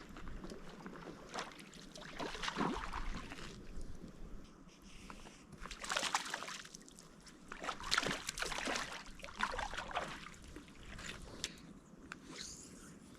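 Water splashing and sloshing in several irregular bursts. A short high chirp comes near the end.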